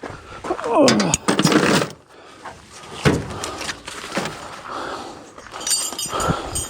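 Knocks, clicks and a thud from gear being handled, with a short falling squeak near the start and a light metallic rattle near the end.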